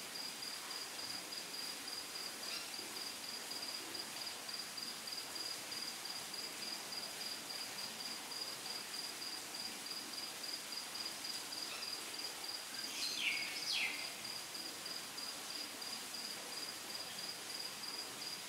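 Summer outdoor ambience: an insect chirping in a steady, rapid high-pitched pulse over a faint hiss. About two-thirds of the way in, a bird gives two quick downward-sliding calls.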